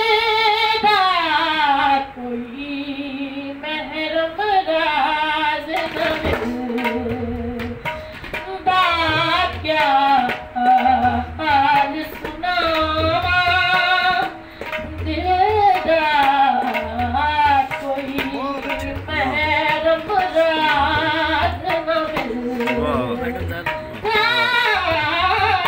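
Female voice singing a slow, heavily ornamented melody in a wavering, sliding line, with a low drum beat underneath.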